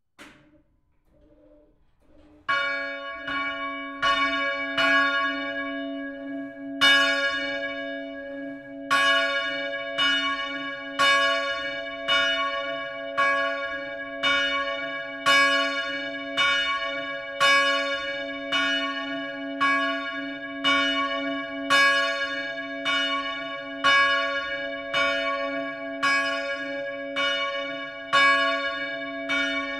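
A single church bell being rung, its clapper striking about once a second, with the bell's hum ringing on between strokes. The strikes start about two and a half seconds in, unevenly at first, and soon settle into a steady rhythm.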